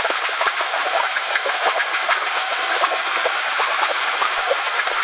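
Swimming pool ambience: a steady wash of splashing water, dotted with many small irregular splashes and drips.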